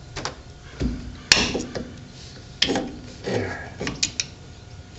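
Metal clicks and short rattles of a rear drum brake's shoe adjuster and springs being worked by hand as the tight adjuster is released, with one sharp click about a second in the loudest.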